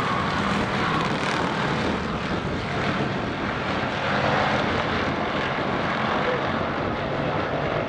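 Field of street stock race cars lapping the track, their engines blending into one steady, unbroken drone.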